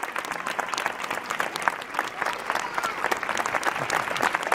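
Crowd applauding: many hands clapping in a dense, irregular patter.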